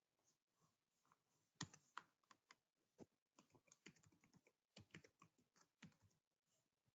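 Faint computer keyboard typing: scattered key clicks, the clearest two about one and a half to two seconds in, the rest spread out and weaker.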